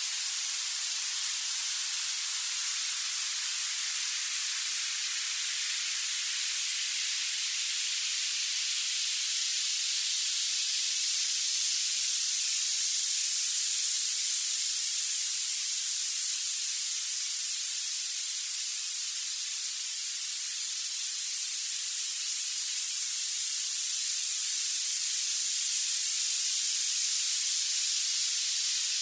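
Violet noise: a steady synthetic hiss whose energy climbs toward the highest pitches, with nothing in the low end.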